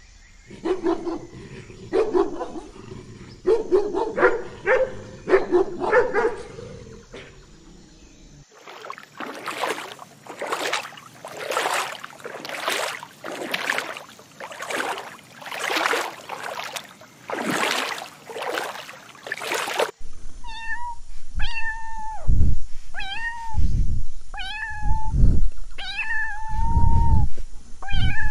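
A domestic cat meowing over and over, about eight calls in the last eight seconds. Before that comes a dog's short, pitched vocal sounds, then a run of evenly spaced whooshing noises about once a second.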